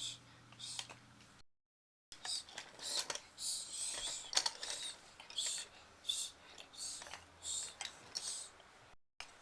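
Wooden toy train track pieces clicking and clattering irregularly as they are handled and fitted together, with a short cut to silence about a second and a half in.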